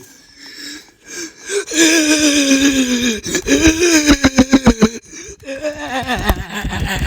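A person's voice making loud, drawn-out nonverbal sounds: a long cry falling in pitch, then a quick run of pulsed, laugh-like bursts at about six a second, then another strained cry.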